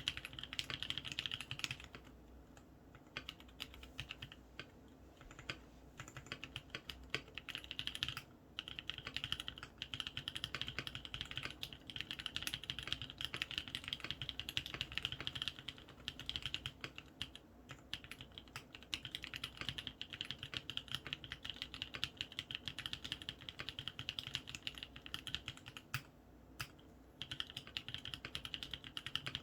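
Steady fast typing on a Matrix Noah mechanical keyboard with lubed Kailh Cream linear switches, aluminum case and plate, and ePBT keycaps: a dense run of key clacks broken by a few short pauses.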